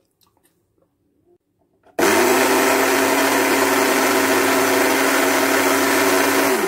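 Electric countertop blender switching on about two seconds in, spinning up quickly and running at a steady speed as it purées cherries and beetroot, then stopping right at the end. A few faint clicks come before it starts.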